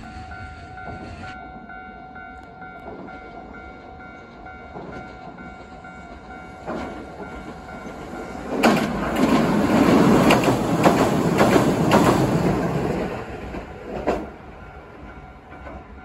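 Train passing close by, loudest about halfway through for four to five seconds, with the wheels clattering over rail joints and a last sharp clack near the end. A level-crossing alarm keeps ringing under it throughout.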